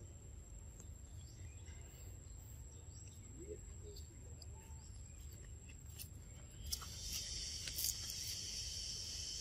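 Outdoor forest ambience. A faint, steady, high insect tone is joined about two-thirds in by a louder chorus of buzzing insects, over a low rumble.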